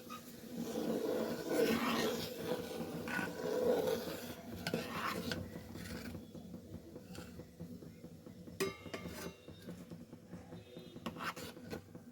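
Metal kitchen utensils and pots clattering and scraping as food is handled and stirred, with a few sharp ringing clinks in the second half.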